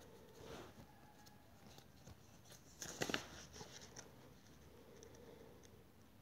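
Near silence: room tone, with a faint brief rustle and a few soft clicks about three seconds in.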